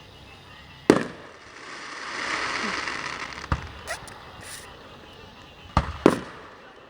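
Fireworks bursting overhead: a sharp bang about a second in, a crackling shower for a couple of seconds after it, another bang, then two bangs close together near the end.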